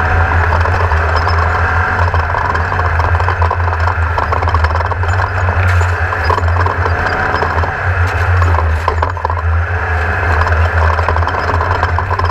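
Off-road race car engine running under load, its pitch rising and falling as it revs, over a steady low rumble with constant rattling and clattering from the chassis.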